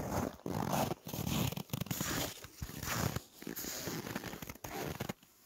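Footsteps crunching in snow: a steady walking rhythm of about eight crunching steps, a little over one a second.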